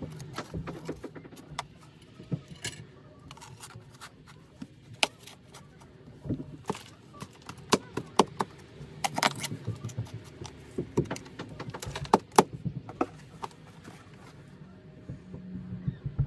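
Hand digging in packed, stony soil: a shovel scraping and knocking into the dirt, with irregular clinks and scrapes, busiest about halfway through.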